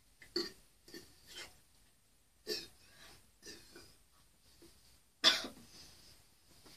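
A person coughing and clearing their throat in a series of short bursts while drinking fizzy root beer, the loudest and sharpest cough about five seconds in.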